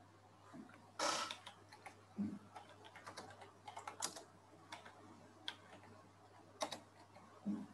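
Faint computer keyboard typing: irregular key clicks, the loudest about a second in.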